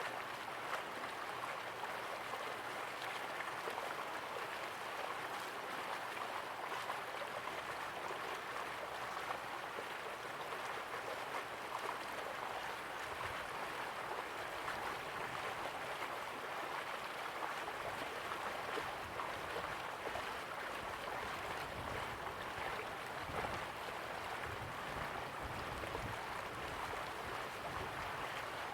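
River water flowing steadily, an even, continuous wash of water sound.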